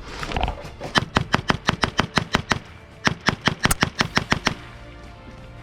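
Airsoft rifle firing two quick strings of sharp shots, about six a second, with a short pause between them.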